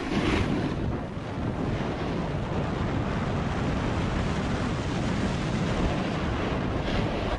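Snowmobile running at speed, its engine buried in a steady rush of wind over the microphone.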